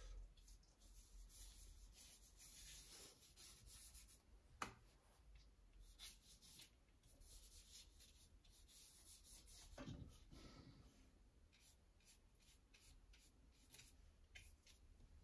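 Faint scratchy swishes of a paintbrush stroking watercolour paper, with a single sharp tap about four and a half seconds in.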